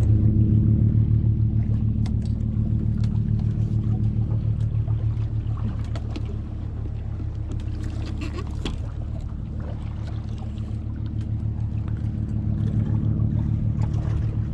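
Yamaha 150 outboard motor running steadily at low trolling speed, a low even hum with a fast pulse, a little louder in the first couple of seconds. Light clicks and knocks from handling rod and line sit on top of it.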